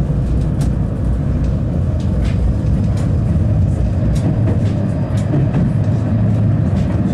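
71-931M Vityaz-Moscow low-floor tram running, a steady low rumble of its drive and wheels on the rails with a few short high clicks scattered through.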